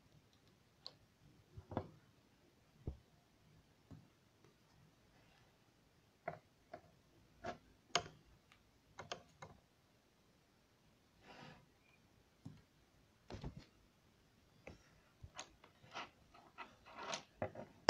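Scattered light clicks and taps from wires, small electronic parts and a soldering iron being handled on a wooden table, coming irregularly with a couple of brief soft rustles between them.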